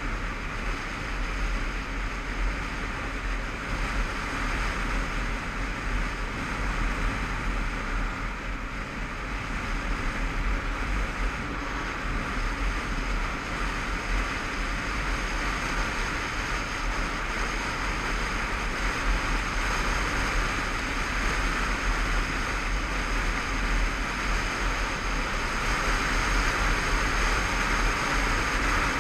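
Honda CBF500 motorcycle on the move, its engine running under a steady rush of wind on the microphone. The rush grows a little louder toward the end.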